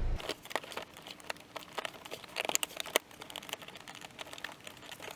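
Scattered small clicks, taps and crinkling of parts being handled during reassembly after the Saab 9-3 door repair. A low hum stops just after the start.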